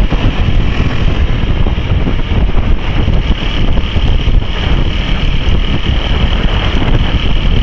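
Wind rushing and buffeting hard on the camera microphone while riding a dirt bike at road speed, with the motorcycle and road noise blurred underneath in a steady loud rumble.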